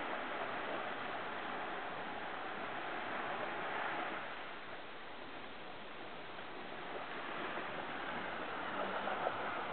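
Steady rushing wash of water as a Jeep Grand Cherokee wades through a shallow river, easing off a little in the middle.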